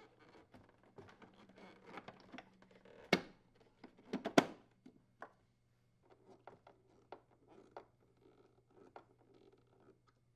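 Hard plastic ice chute assembly being handled and seated in the refrigerator's ice compartment: scattered light clicks and knocks, with two sharper clacks about three and four and a half seconds in. Later come sparser faint ticks as a screwdriver is set on the chute's screws.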